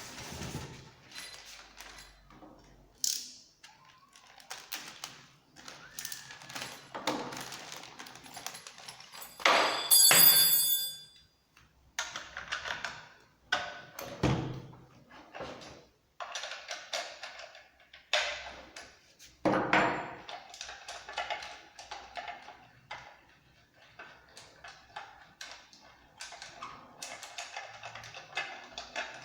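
Unpacking and handling a new chainsaw and its packaging: irregular rustles, scrapes and knocks, with a loud ringing clink about ten seconds in.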